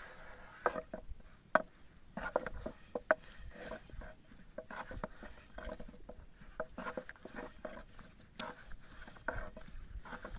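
Thin wooden rolling pin rolling flatbread dough on a round wooden board: irregular wooden clicks and knocks as the pin strikes the board, with soft rubbing of the dough between them.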